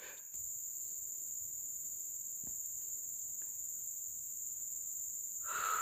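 Insects droning steadily at a high, unchanging pitch, with a couple of faint ticks and a brief louder call near the end.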